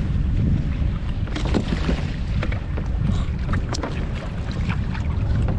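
Wind buffeting the microphone over water sloshing and splashing around a small boat, with short irregular splashes throughout.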